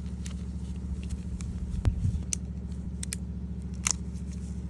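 Scattered small clicks and crackles of hands wrapping tape around an electric-bike wiring harness, over a steady low hum.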